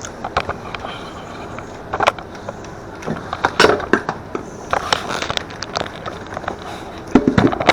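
A bag rustling and crinkling as it is held open and handled, with irregular clicks and knocks, the loudest about 2 s in, again at about 3.5 to 5 s, and near the end.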